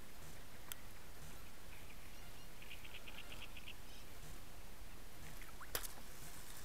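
Steady low outdoor background noise beside a lake, with a quick run of about eight high pips in under a second near the middle and a sharp click near the end from the handled fishing rod and reel.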